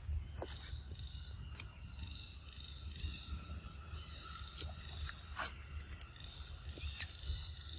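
A macaque biting and chewing a firm green fruit, giving scattered sharp crunches, the loudest about seven seconds in. Behind it run a steady insect drone and a low rumble.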